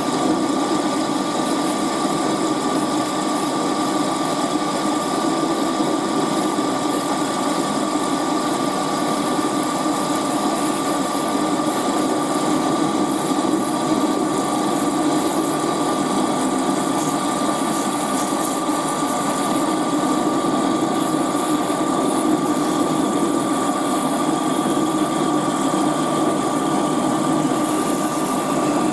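Metal lathe running steadily while a parting tool cuts into a spinning metal bar lubricated with dripped cutting oil, a constant motor drone with a steady high whine over it.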